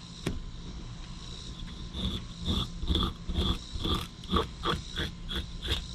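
A fork scraping scales off a whole white perch, in quick, even strokes, about three a second, starting about two seconds in.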